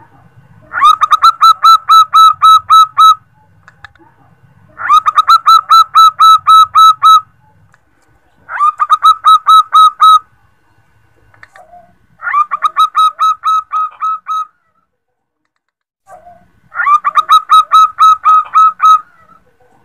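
Female zebra dove (perkutut) calling: five runs of quick, evenly repeated cooing notes, each run about two seconds long with short pauses between. It is the female's call to a male, the kind used to lure males in.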